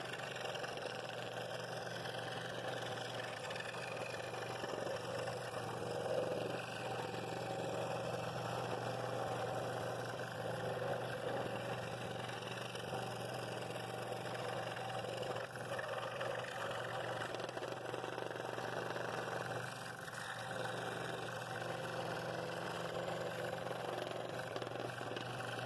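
Scroll saw running steadily, its No. 7 blade cutting the outer outline of a thick wooden bowl blank.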